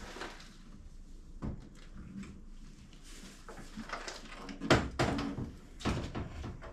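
Metal clunks and rattles as a car door and its hinge are handled: a single knock about a second and a half in, then a short burst of clatter around five seconds in.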